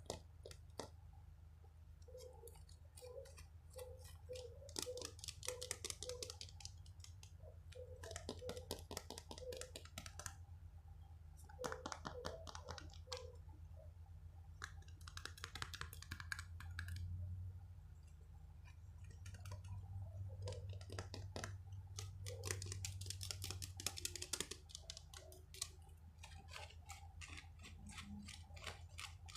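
Close-miked ASMR trigger sounds: rapid tapping and clicking on an object, with several bursts of scratchy rustling a second or two long, over a low steady hum.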